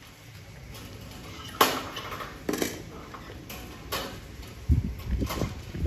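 A wire cage clinking and knocking irregularly as the cats shift against it, about eight sharp clicks with the loudest about one and a half seconds in, and a few duller thumps near the end.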